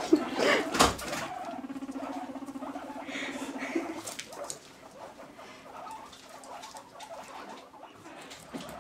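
Guinea pigs rumbling: a low, buzzing purr with a fast vibrato that lasts a couple of seconds, then a fainter one later, the rumble a guinea pig makes when courting or asserting itself in a newly mixed herd. Scuffling on wood shavings and a sharp knock come about a second in.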